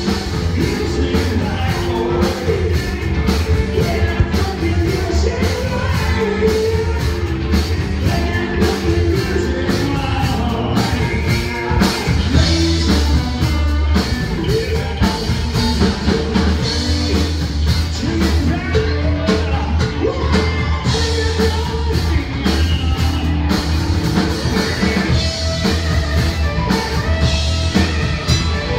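Live rock band playing loud through a PA, with a singer over drums, bass and guitar keeping a steady beat.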